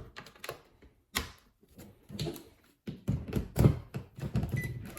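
A few separate clicks and knocks from plastic parts and a connector being handled as the mini washing machine's circuit board is plugged in, with a denser run of knocks in the second half.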